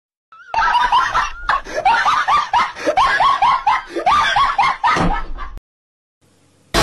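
High-pitched laughter, a fast run of short 'ha' syllables each rising and falling in pitch, that cuts off suddenly about five and a half seconds in.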